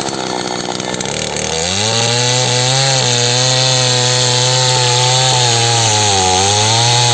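Small chainsaw engine running at low speed, then revved up about a second and a half in and held at high speed as it cuts wood. The pitch sags briefly near the end under load.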